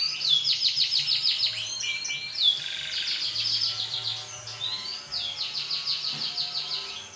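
Canary singing: a run of high, rapid trills, one roll after another, joined by short gliding whistled notes.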